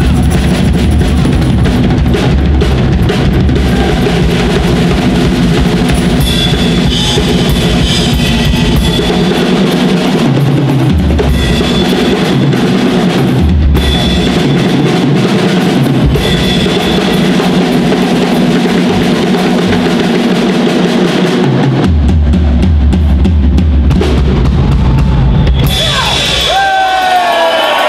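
Live rock band playing loudly: a drum kit carries a driving beat under electric guitars and changing bass notes. High gliding notes come in near the end.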